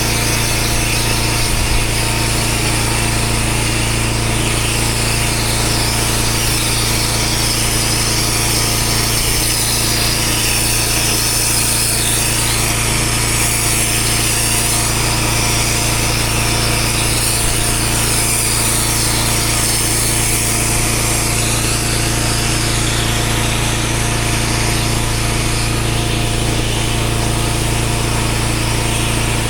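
Pressure washer running steadily, its motor droning under the continuous hiss of the high-pressure water jet on block paving.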